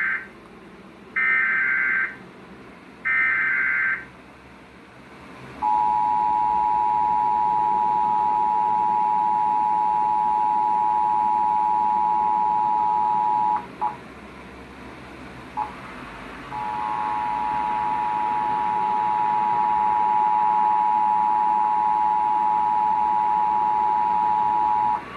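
Emergency Alert System broadcast signalling: the tail of one and then two more short bursts of the SAME digital header, each about a second long and a second apart. About six seconds in the steady two-tone EAS attention signal starts. The attention tone breaks off for about three seconds roughly fourteen seconds in, with a couple of faint clicks, then resumes.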